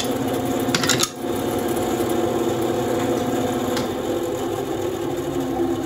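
WEN 3939 9-inch bandsaw running with no wood in the blade, a steady motor hum. A short clatter of cut wood strips being handled sounds just under a second in.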